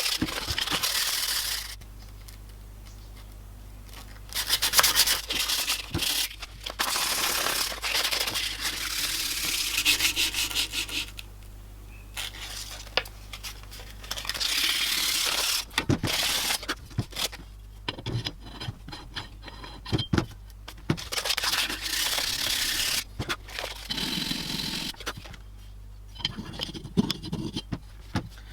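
Hand scraping and rubbing on metal, in stretches of one to three seconds broken by short pauses, over a steady low hum.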